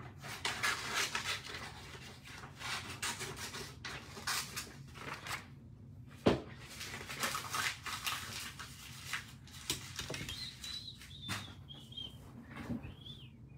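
Irregular rustling and handling noise with scattered clicks, and one sharp click about six seconds in. A few short, high chirps come near the end.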